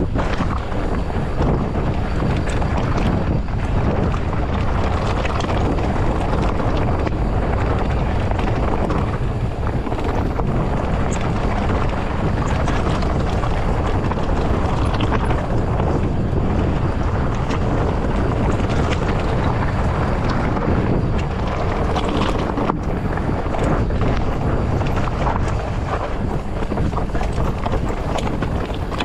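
Wind buffeting the microphone as a Polygon Siskiu T8 mountain bike coasts down a rocky dirt singletrack. The tyres crunch over the trail and the bike rattles with many small knocks over the rocks.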